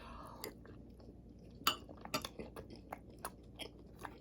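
A person chewing a mouthful of food close to the microphone: faint, irregular wet clicks and smacks, a few a second, the strongest a little under two seconds in.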